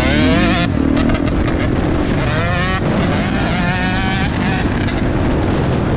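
Motocross dirt bike engine under hard acceleration, the revs climbing and breaking off three times, with wind rushing over the helmet-mounted microphone.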